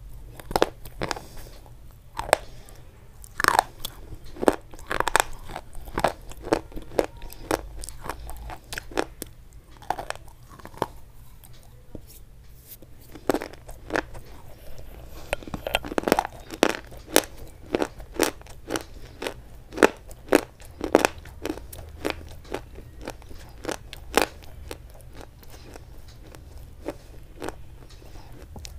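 Close-miked crunching and chewing of hard white sticks in the mouth: a run of sharp, irregular crunches that thins out near the end.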